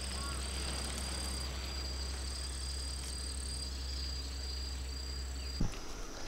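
Insects trilling in a steady high-pitched drone at two pitches at once, over a low steady rumble; the sound cuts off suddenly near the end.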